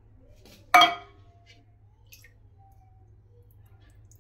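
A single sharp metallic clink about a second in, a utensil knocking against the metal cooking pot, ringing briefly after the strike. A faint steady low hum runs underneath.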